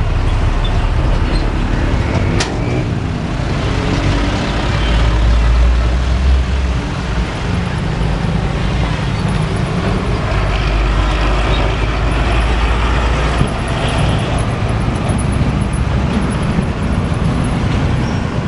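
Heavy diesel cargo trucks and a bus passing close by over a railway level crossing, engines running loud and low, with motorcycles among them. A sharp click about two and a half seconds in.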